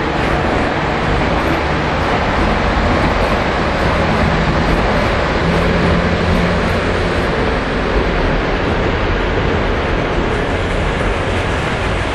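Lionel O gauge model trains running on the three-rail layout: a steady rumble and whir of wheels and motors with a low hum, with no sudden changes.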